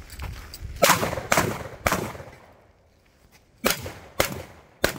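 Shotgun fired rapidly six times in two strings of three: three shots about half a second apart, a pause of nearly two seconds, then three more at the same pace, each shot trailing off briefly.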